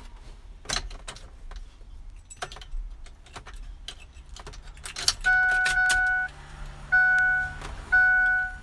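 Keys rattle and click at the ignition. About five seconds in, the Ford F-250's dashboard warning chime starts up: a steady two-note ding that sounds three times, about once a second, each one fading out.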